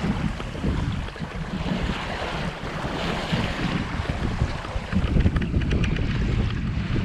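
Wind buffeting the microphone in uneven gusts over the rush and splash of water along the hull of an O'Day 25 sailboat under sail.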